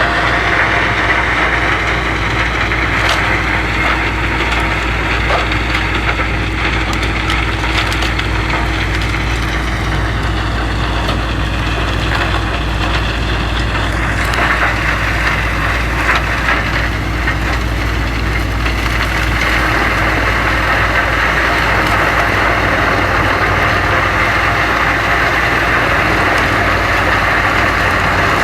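Wood chipper shredding branches: its engine runs steadily under a constant crackle of wood being chipped. The machine's pitch sags for a few seconds around the middle, then recovers.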